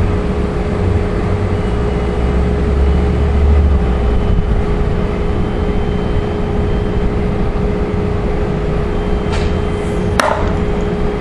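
A single sharp shot from a CCM SR1 bolt-action paintball rifle near the end, over steady background hiss with a low rumble.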